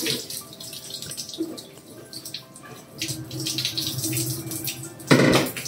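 Tap water running and splashing over fresh chenna in a cloth strainer, rinsing out the sourness of the curdling agent. A brief louder gush of water comes about five seconds in.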